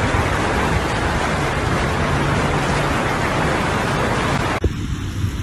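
Floodwater rushing and splashing against a car as it drives through a flooded street, a loud, steady rush. It cuts off suddenly about four and a half seconds in, giving way to a quieter low rumble.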